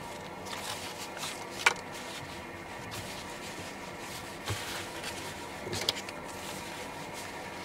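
Rustling of Arc'teryx Gore-Tex jacket fabric and a paper seam-tape strip being handled, with a few sharp clicks, the loudest near two seconds in, over a steady background hum.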